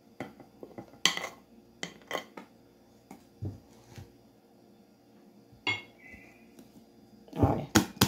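A metal spoon clinking and scraping against a glass mixing bowl and an aluminium tube pan as thick cake batter is spooned in: scattered sharp clicks and knocks, one with a brief ring about six seconds in. Louder knocks come near the end as the pan is handled on the table.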